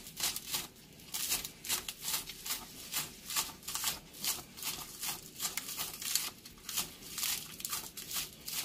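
Kitchen knife slicing scallions on a wooden cutting board: short, crisp cuts, each ending in a tap of the blade on the board, at a steady pace of about three a second.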